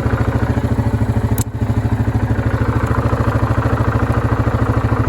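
An engine running steadily at an even, pulsing beat, like a small vehicle idling.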